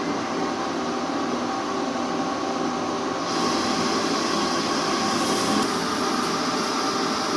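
Metalworking machine tool running steadily with a hum of several steady tones. A higher hiss joins about three seconds in.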